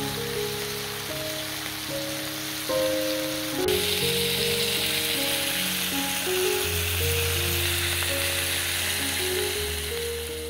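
Beef and vegetable rolls sizzling on a ridged grill pan under background music. The sizzle grows louder about a third of the way in.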